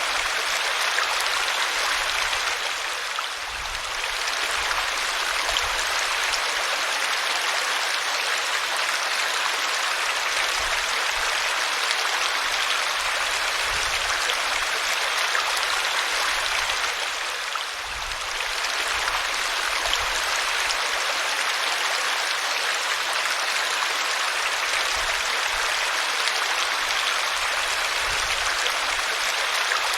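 Waterfall pouring steadily: an even rush of falling water that dips briefly in loudness twice, a few seconds in and again just past halfway.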